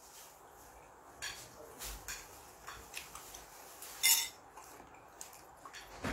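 Close-up eating sounds: scattered short, wet mouth clicks and smacks from chewing, with the odd light click of tableware. The sharpest click comes about four seconds in.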